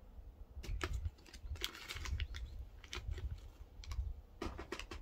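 Plastic snack bag of dried shredded squid crinkling and rustling in quick, irregular clicks as a strip of squid is pulled out of it.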